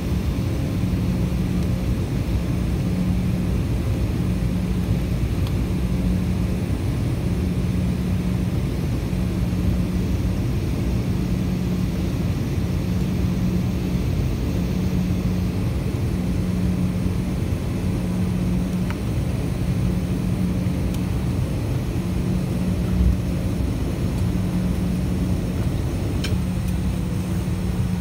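Jet airliner's engines heard inside the cabin while the aircraft moves on the ground: a steady low rumble with a low hum that pulses on and off about every second and a half. Near the end a tone begins to slide down in pitch.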